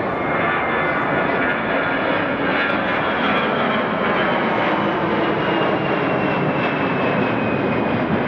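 Jet airliner's engines passing close by: a loud steady rush with a thin high whine that slowly falls in pitch.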